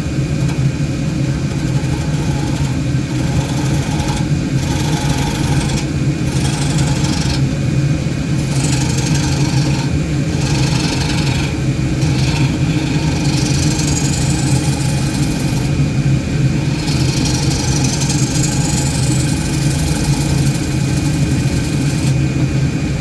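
Woodturning lathe running with a steady motor hum while a hollowing tool cuts into the spinning wood, the cutting noise coming and going in spells.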